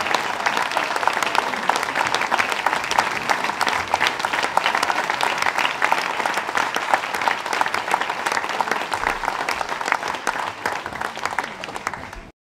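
Audience applauding steadily; the applause cuts off suddenly near the end.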